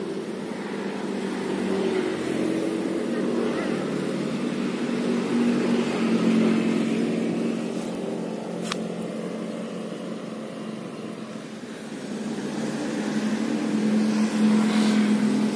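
Road traffic passing: vehicle engines swelling as they go by and fading again, loudest about six seconds in and near the end. One sharp click about nine seconds in.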